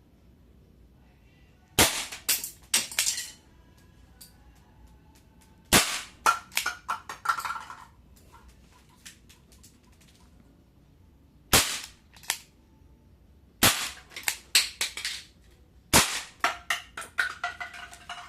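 Crosman SR357 CO2 air revolver (4.5 mm) firing five single shots a few seconds apart, each a sharp crack followed by about a second of quick rattling clicks.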